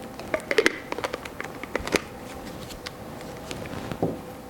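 Plastic breast pump parts being handled and fitted together: a run of light clicks and taps over the first two seconds, and another knock about four seconds in.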